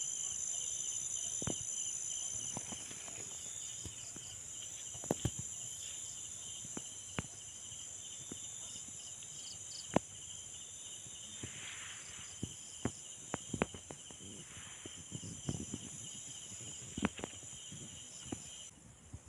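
Night insects trilling in a steady, high-pitched chorus, with scattered small clicks and rustles close by. The chorus thins out near the end.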